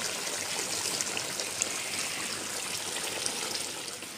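Meat and potato curry sizzling in an aluminium wok: a steady hiss with fine crackles.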